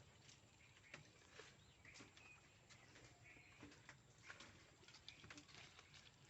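Faint farmyard sounds: birds chirping briefly here and there, with scattered light clicks and knocks.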